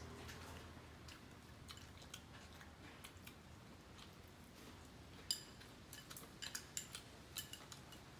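Chopsticks clicking against porcelain rice bowls, with faint chewing, as two people eat rice. The clicks are scattered and quiet; the sharpest comes a little over five seconds in, and several more follow close together soon after.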